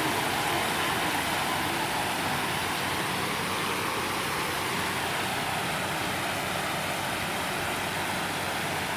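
Water falling steadily over a man-made artificial-rock waterfall: an even, unbroken rush of splashing water.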